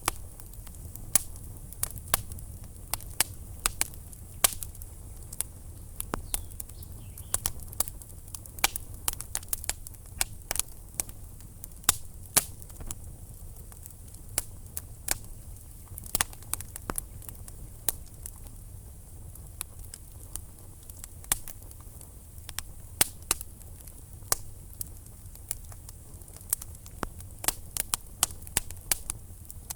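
Wood fire burning in a fireplace: irregular sharp crackles and pops of burning logs, sometimes several a second, over a low steady rumble of the flames.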